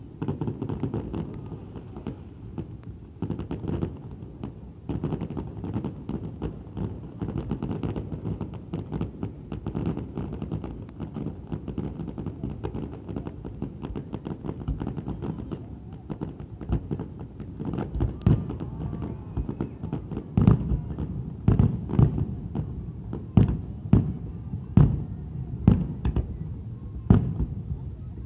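Aerial fireworks display: a dense, continuous run of distant bangs and crackles. Over the last ten seconds, sharper and louder booms stand out about once a second.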